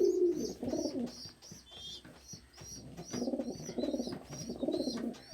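Domestic pigeons cooing in bouts, a male's display coo, with a steady series of short high chirps repeating about four times a second.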